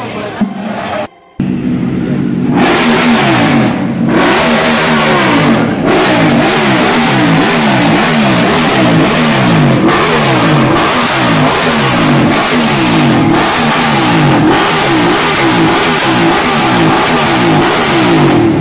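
Sport motorcycle engine revved over and over in quick throttle blips, its pitch rising and falling about three times every two seconds. The sound cuts out briefly about a second in.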